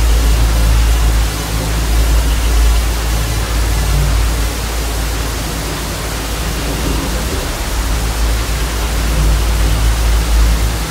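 Hiss of television static: a steady, even noise spread across all pitches, over a deep, steady low drone.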